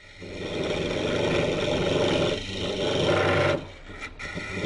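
Jet Mini wood lathe spinning a green-wood goblet blank while a hollowing tool cuts inside the cup: a rough scraping of the cut over a steady low hum. The cut drops away about three and a half seconds in and starts again near the end.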